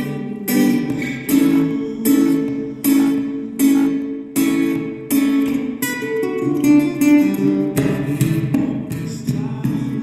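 Music: an acoustic guitar strummed in a steady rhythm, about one strum every three-quarters of a second.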